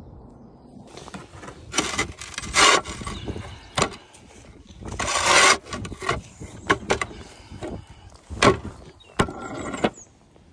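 Concrete roof tiles being handled: a series of irregular scrapes with sharp clicks and knocks as tiles are pushed and slid against each other. The longest scrapes come about two and five seconds in.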